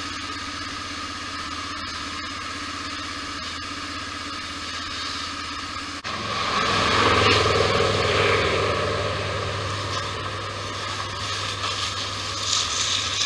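A steady engine hum; about six seconds in it gives way abruptly to a louder, rougher engine noise that slowly eases off.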